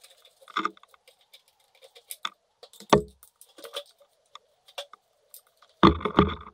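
Workshop handling sounds of small metal parts and tools: scattered light clicks and clinks, one heavier knock about halfway through, then a continuous rough scraping noise that starts near the end.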